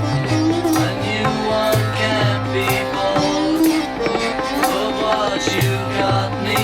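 Sitar and tabla playing an Indian-style instrumental passage over a steady drone, with bending sitar phrases and a running tabla rhythm.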